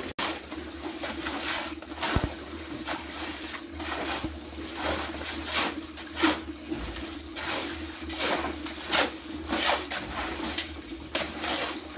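Shovel scraping and turning wet concrete mix on the ground by hand, a gritty stroke about twice a second, over a faint steady hum.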